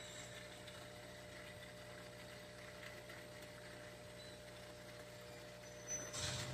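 Aquarium filter pump running with a steady low hum and faint water hiss. A brief rustling bump about six seconds in.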